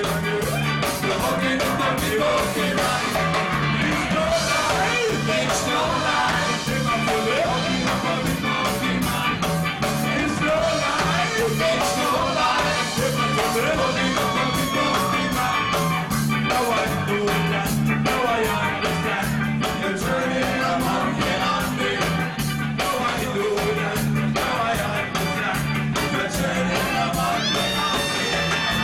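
A ska band playing live and loud: singing over electric bass and drums on a steady, driving beat.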